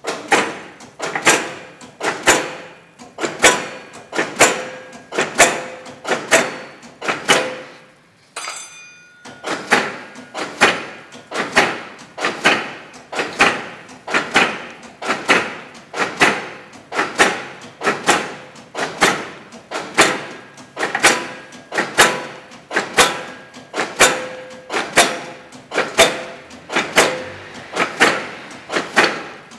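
Heidelberg SORDZ two-colour offset printing press running, its mechanism clacking in a steady rhythm about once a second, briefly broken about eight seconds in.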